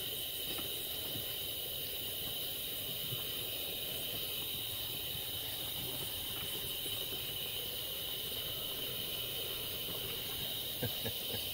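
Night insects droning steadily in a high, even chorus, with an even low rumble underneath.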